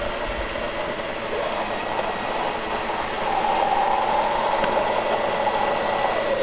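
Countertop electric blender running, pureeing a jar of pumpkin soup. Its motor drone grows louder and higher about halfway through, then drops back near the end.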